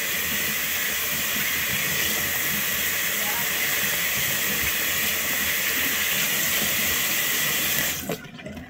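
Tap water running steadily from a bathroom sink faucet over soapy hands and into the basin. The flow stops abruptly about eight seconds in.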